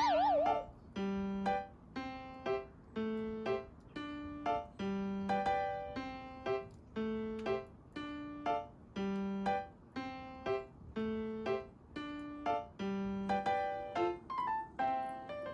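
Background music: a light electric-piano melody with a steady, bouncy rhythm. Right at the start a short wavering tone slides downward.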